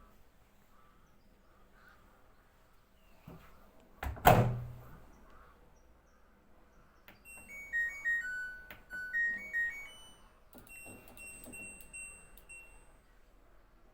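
A thunk about four seconds in, then an LG washing machine's control panel plays a short electronic tune, followed by a run of short beeps on one pitch.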